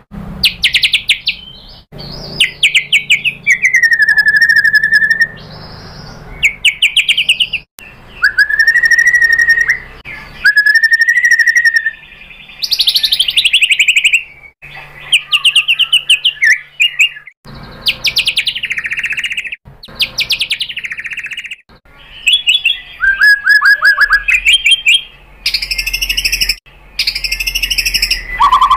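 White-rumped shama (murai batu) singing a loud, varied song: a string of phrases a second or two long made of fast trills, gliding whistles and rapid chip notes, with short gaps between them.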